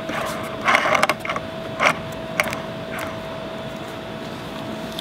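A malfunctioning Boosted Board V2 drive motor turned over by hand, giving irregular crunchy clicks and rattles. They are thickest in the first second or so, then come as scattered clicks. The crunch comes from a small metal gear that has worked loose on the motor.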